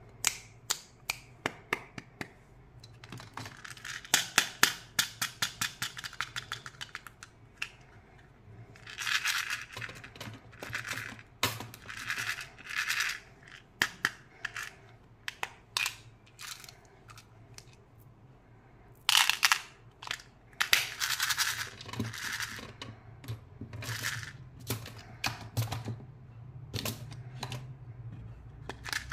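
Small plastic toy flip phone being handled: a run of quick clicks a few seconds in, then stretches of plastic rustling broken by scattered clicks and taps.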